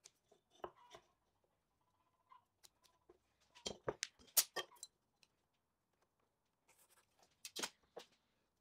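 Light handling knocks and clicks as small wooden pieces are moved and pressed into place on a clamped glue-up: a cluster of taps a few seconds in, and another few shortly before the end.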